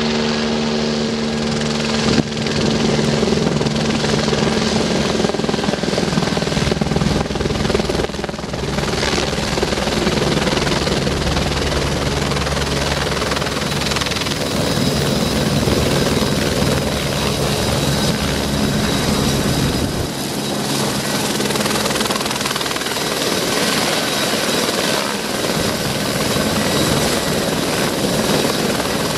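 Twin-turbine Eurocopter AS355 F2 Ecureuil 2 helicopters running, with main rotor and turbine noise, first in flight and then hovering low and sitting on the pad with the rotor turning. The sound changes suddenly about two seconds in and again later.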